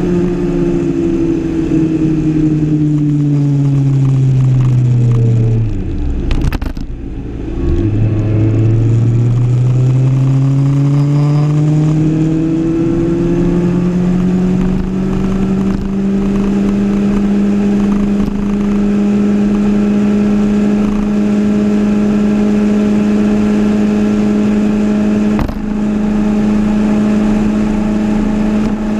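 Kawasaki Ninja ZX-6R 636's inline-four engine on the move, with wind rush: the revs fall steadily for about six seconds as the bike slows, sink briefly to a low, near-idle note, then climb smoothly over the next several seconds and hold a steady cruising pitch for the rest.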